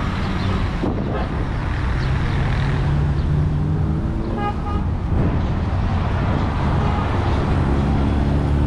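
Street traffic with vehicle engines running close by, one of them accelerating. A car horn beeps twice briefly about four and a half seconds in.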